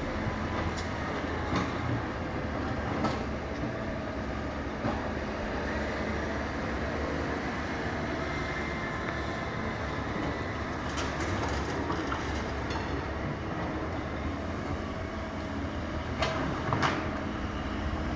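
Kobelco 220 hydraulic excavator's diesel engine running steadily under load, with scattered sharp metallic clanks and knocks from the digging. The loudest clanks come as a pair near the end.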